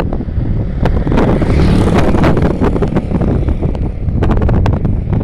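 Wind buffeting the microphone, with a few sharp knocks, over the low rumble of an ONCF passenger train rolling into the station.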